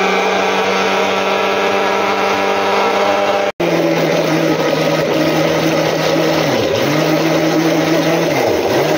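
Electric mixer-grinder (mixie blender) running at high speed, blending mint leaves, yogurt and dried pomegranate seeds for raita: a loud, steady motor hum. It cuts out for an instant about three and a half seconds in and then resumes. Twice near the end the motor slows and picks up again.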